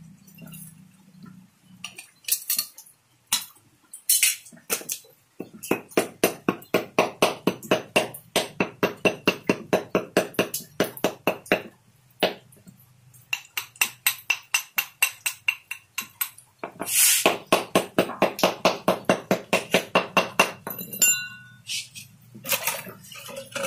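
A hammer striking a small freshly cast lead fishing sinker in its metal casing on a concrete floor: a few single blows, then two long runs of quick ringing metallic clinks, about four a second.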